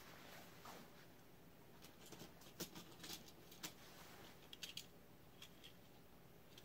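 Near silence with faint, scattered clicks and light rustling from small die-cast toy cars being picked up and handled, a handful of soft ticks between about two and six seconds in.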